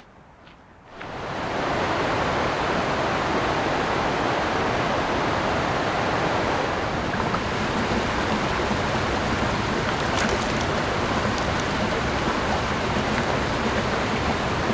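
Steady rush of flowing stream water, starting suddenly about a second in and holding evenly.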